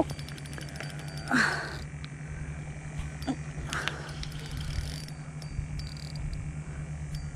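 Spinning reel under load from a hooked fish: a quick run of rapid drag clicks early on, then lighter ticks as the reel is cranked. A brief louder strained vocal sound comes about a second and a half in, over a steady low hum.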